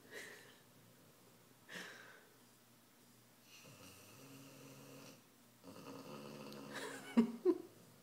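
Weimaraner snoring in its sleep: a few drawn-out, buzzing snores with short breathy puffs between them, and two sudden louder bursts near the end.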